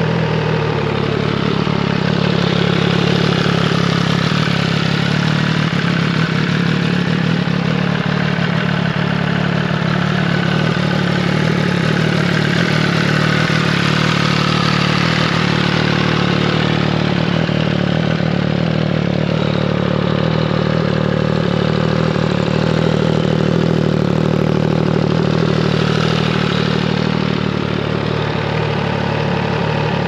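2014 MV Agusta Rivale 800's inline three-cylinder engine idling steadily in neutral through a QD Exhaust Power-Gun aftermarket exhaust.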